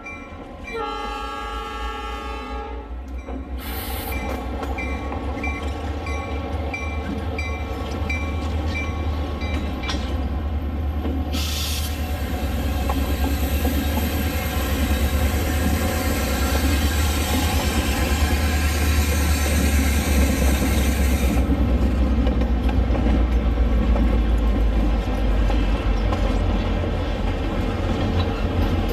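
Diesel locomotive sounds: a horn chord sounds for about two seconds at the start, then the engine runs with a steady low rumble. A quick repeated ringing tone comes in for several seconds after the horn. A long hiss starts near the middle and stops about two-thirds of the way through.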